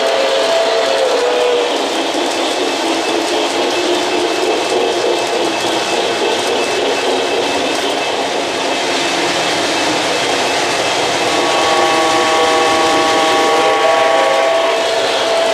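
O-gauge model trains running on three-rail track: a steady rumble and clatter of wheels and motors. A model locomotive's sound unit blows a wavering signal briefly at the start and a long steady one for a few seconds near the end.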